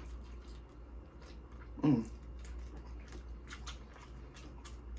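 Close-miked eating of Dungeness crab: a run of wet chewing and lip-smacking clicks, with a short hummed "mm" falling in pitch about two seconds in.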